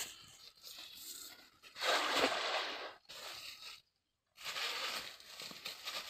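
Cast net thrown onto a river: a rustling splash about two seconds in as the weighted net hits the water, then more splashing and rustling as it sinks and is drawn in by its rope.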